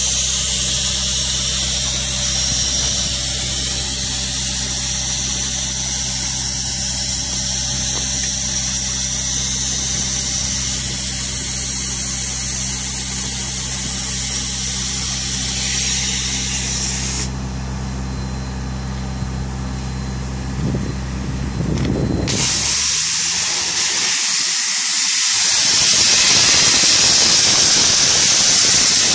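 Wet sandblasting rig: a steady machine hum with a high hiss while the blast nozzle is held ready, then near the end the nozzle opens and the blast starts as a loud, steady rushing hiss of air, water and abrasive.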